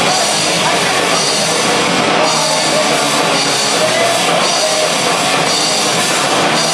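Live rock band playing loud and steady on electric guitar, bass guitar and drum kit.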